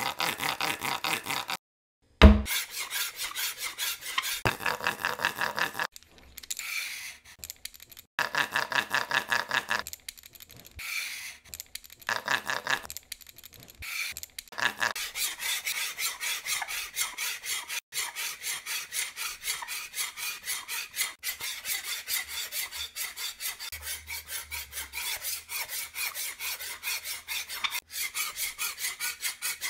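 Rapid back-and-forth strokes of a hand tool rasping on wood, several a second, in short runs with pauses during the first half and then continuous; a single sharp thump about two seconds in.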